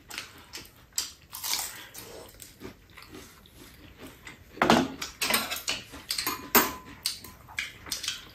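Fried chicken being eaten: chewing and mouth sounds, with clicks and clinks of chopsticks and dishes against a metal tray, busiest in the second half.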